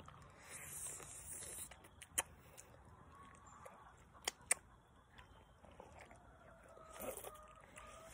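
Quiet chewing of a soft jelly fruit candy, with a few sharp mouth clicks about two seconds in and again around four and a half seconds. A faint steady tone is heard near the end.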